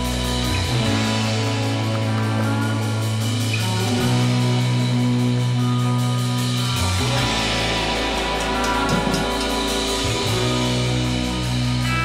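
Background rock music with guitar and drums, its bass notes changing every few seconds.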